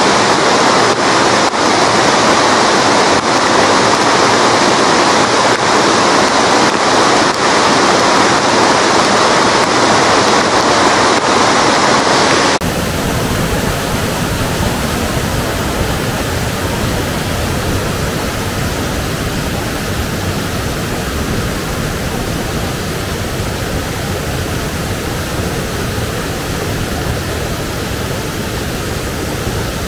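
Rain-swollen mountain river rushing loudly over rocks and small falls in high water. About twelve seconds in, the sound changes abruptly to a deeper rush of water with more low rumble.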